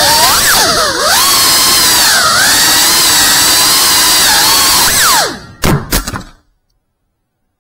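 FPV quadcopter's motors and propellers whining, the pitch rising and falling with the throttle. About five seconds in the whine drops away, two sharp knocks follow, and the sound cuts out.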